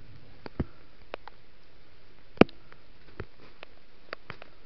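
Twigs and shrub branches snapping and crackling as bushes are broken and pulled by hand, in irregular sharp cracks, with one loud snap about halfway through.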